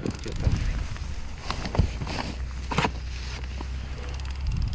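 Wind rumbling on the microphone, with a handful of short knocks and rustles of gear being handled in a metal boat as the landing net is grabbed, the sharpest knock about two seconds in.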